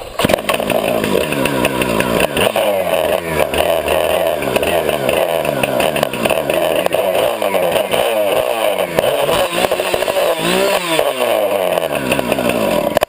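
Two-stroke gas chainsaw running with no chain fitted, revved over and over so its pitch rises and falls repeatedly, with one big rev and drop near the end.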